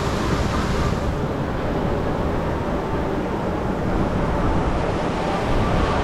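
Steady rushing of water around a river rapids ride raft, with wind rumbling on the microphone; the higher hiss softens about a second in.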